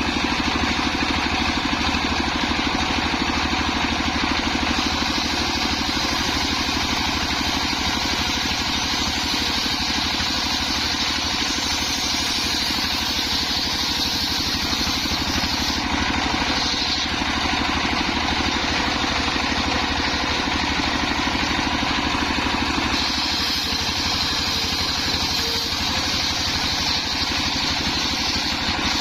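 Engine of a homemade circular sawmill running steadily, with a higher hiss that strengthens and fades a few times.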